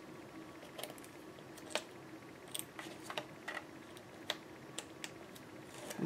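Faint, scattered clicks and taps, about a dozen, of a hand tool and fingers pressing ribbon down onto double-sided tape on a chipboard cover.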